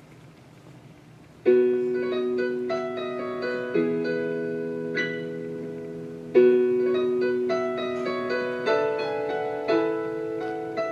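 Piano introduction to a song: after about a second and a half of faint hiss, sustained chords begin, with a new chord struck every couple of seconds.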